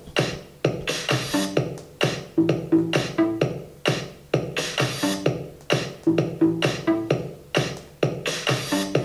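Electronic dance track with a drum-machine beat and a fast, steady rhythm, playing from a small portable speaker shut inside a box of foamed polyethylene.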